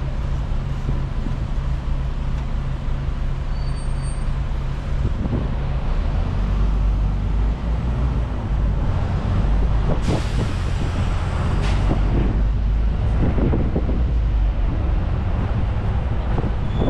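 Sightseeing bus engine running under steady road and traffic noise, its note dropping about five seconds in. Short sharp hisses come about ten and twelve seconds in, like a bus's air brakes.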